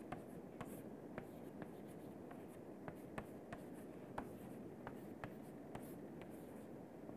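Chalk writing on a chalkboard: faint, irregular light taps and short scratches of the chalk stick on the board, about two a second.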